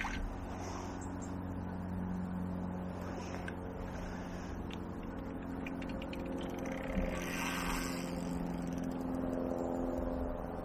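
A steady engine hum from a running motor vehicle, with a few faint ticks a little before the middle.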